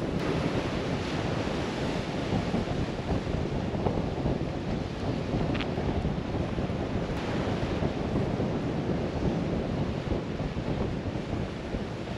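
Wind buffeting the microphone over the wash of surf on the coastal rocks, a steady low rush.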